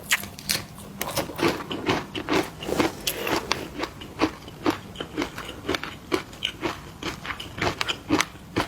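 Crunchy snacks being bitten and chewed close to the microphone: a quick, irregular run of sharp crunches, several a second.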